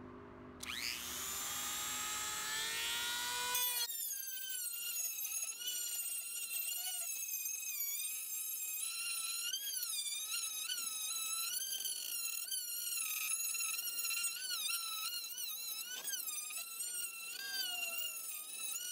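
Dremel 3000 rotary tool with a sanding drum spinning up with a rising whine about a second in, then running at high speed as the drum sands rust off pressed steel, its whine wavering in pitch under load.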